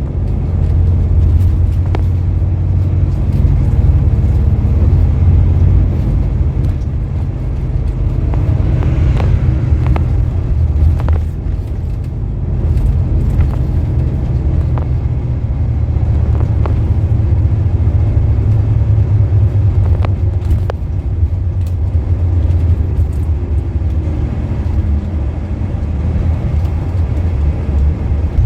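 Bus running on the road, heard from inside the passenger cabin: a steady low engine and road rumble, with scattered short rattles and knocks from the body.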